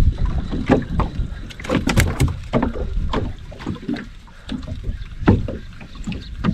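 Choppy water slapping and knocking irregularly against the hull of a small wooden boat, over a steady low wind rumble on the microphone.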